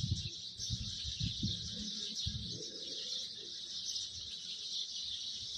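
A steady, high-pitched background chorus of chirping, with faint low rustles and knocks in the first few seconds.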